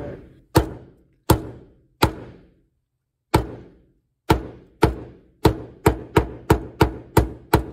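Claw hammer pounding flowers through wax paper on a wooden board, a series of sharp knocks, each with a short ring. A few slow, spaced strikes come first, then after a pause about ten quicker ones in the second half. This is the pounding that crushes the petals and prints their pigment onto the paper.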